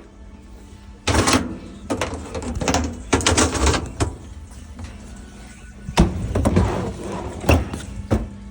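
A run of clunks and rattles, several knocks in a few seconds, typical of washing machine doors and lids being opened and shut, over faint background music.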